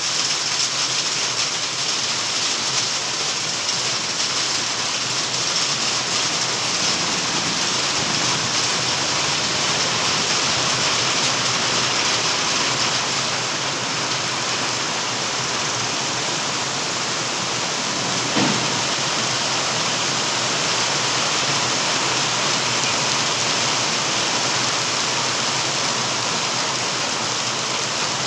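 Hailstorm: hail and heavy rain falling steadily on the surroundings, with one short knock about two-thirds of the way through.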